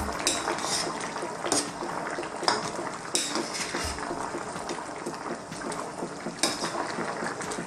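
Tuna and coconut-milk stew simmering in a metal wok, with a steady bubbling. A metal spatula knocks and scrapes against the wok now and then as the stew is stirred.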